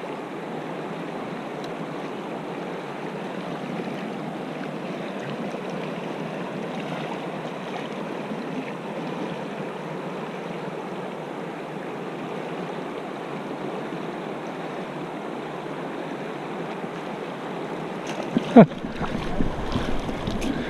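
Gallatin River riffle rushing steadily over rocks. Near the end come a few loud bumps and a low rumble of wind on the microphone as the camera is moved.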